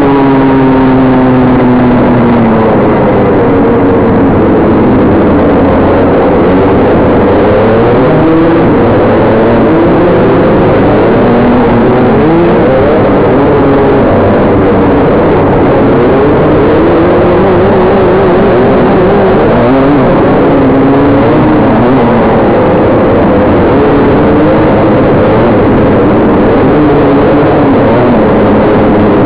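Dirt kart engine racing, heard loud and close from an onboard camera, its revs rising and falling over and over as the kart accelerates and backs off around the track.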